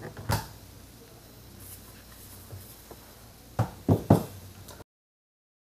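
Handling noise as the battery pack is lifted out of a Roborock S6 robot vacuum's underside: a knock just after the start, a low steady hum, then three quick clunks about three and a half seconds in. The sound cuts off suddenly near the end.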